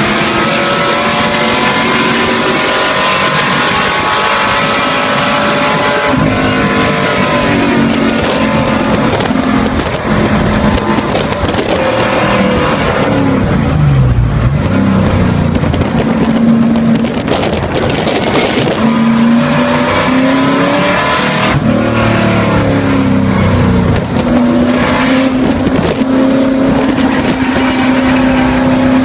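American V8 race car engine heard from inside the cockpit, running at high revs, then falling in pitch as the car brakes, with a sharp dip and climb about halfway through as it downshifts. It revs up again and settles into a steady note near the end.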